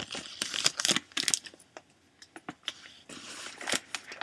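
Trading cards and their packaging being handled by hand: an uneven run of clicks, taps and short rustles, with a brief lull about halfway through.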